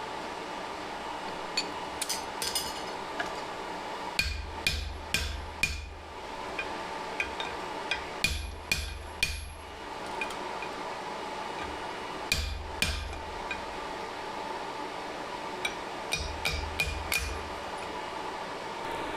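Blacksmith's hammer striking steel on an anvil while forging a nail header, in several bursts of quick ringing blows with pauses between them, over a steady drone.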